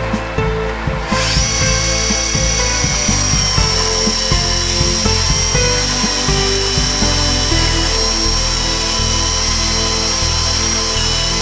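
Chainsaw mill cutting a thin veneer slice from a birch log. Its high whine rises about a second in and then holds steady as the chain cuts, under background music.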